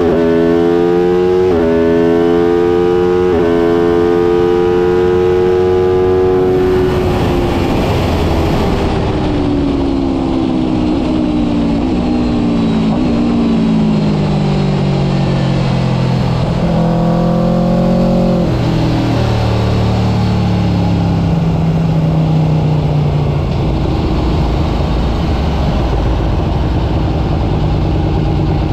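Aprilia RSV4 1000 RF V4 engine accelerating through the gears, its pitch dropping at each upshift in the first few seconds, then falling as the bike slows on the throttle, with a brief blip partway through before settling at a lower, steadier note. Heard onboard with wind noise on the microphone.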